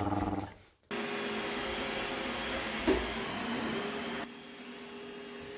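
Robot vacuum cleaner running steadily, a motor hum with a thin steady tone, with one sharp click about three seconds in; it gets quieter just past four seconds. Before it starts, a short wavering pitched sound cuts off abruptly.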